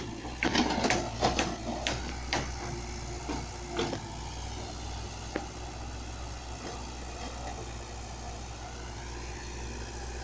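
Backhoe engine running with a steady low hum. A run of sharp knocks and clanks comes in the first four seconds, then it settles to the hum alone.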